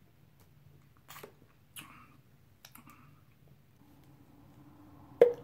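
A person drinking sparkling water from a plastic bottle, with a few short wet mouth clicks and swallows. A sharp knock about five seconds in is the loudest sound.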